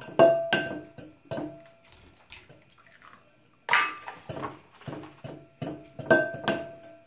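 Irregular clinks and taps of a wire whisk and eggshells against a glass mixing bowl, each with a short glassy ring, as eggs are cracked into it and beaten. They come in one cluster at the start and another from about four seconds in.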